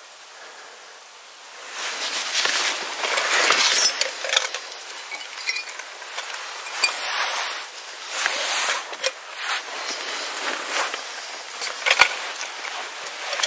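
Camp cookware being handled while coffee is prepared: a run of irregular clinks and knocks mixed with scraping and rustling, starting about two seconds in.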